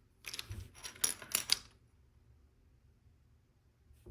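Loose LEGO pieces clicking and rattling against each other as they are picked through by hand, for about a second and a half, then stopping.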